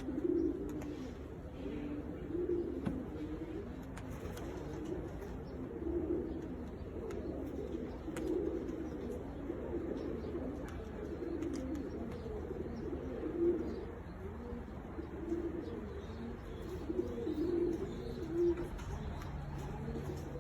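Domestic pigeons cooing: repeated low coos, one every second or two, over a steady low rumble.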